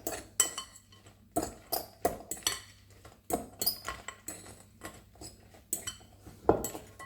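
A utensil knocking and clinking against a bowl at an irregular pace, about two strikes a second, some ringing briefly, as diced bread is stirred and tossed in olive oil.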